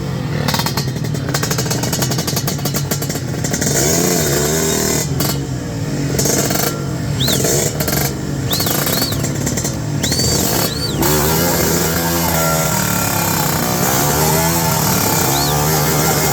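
Drag-race motorcycle engines running and revving, with rapid firing pulses and a wavering engine pitch. Several short high chirps come in over it.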